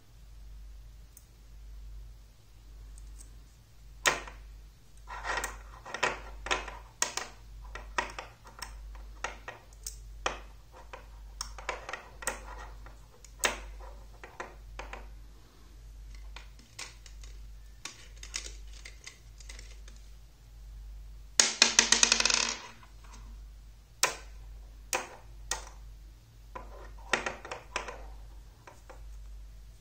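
Metal magnetic rods and steel balls of a magnet construction set clicking and snapping together as they are handled, in scattered sharp clicks. A little past two-thirds of the way through comes a burst of rapid rattling clicks, the loudest moment, over a faint steady low hum.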